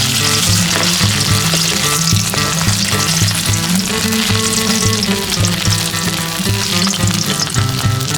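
Fish eggs frying, a steady sizzle, with background music playing underneath.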